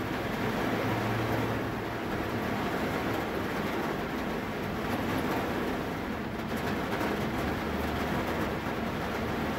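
Steady rain falling on a vehicle's roof, heard from inside the cabin as an even hiss with a low hum underneath.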